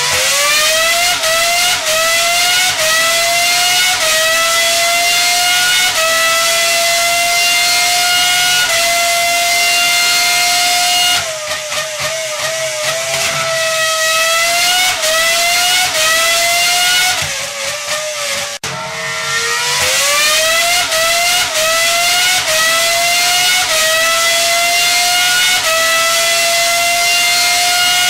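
A high-revving engine accelerating, its pitch climbing in steps with short dips like gear changes. It falls back about eleven seconds in and again around seventeen seconds, then climbs through the steps again.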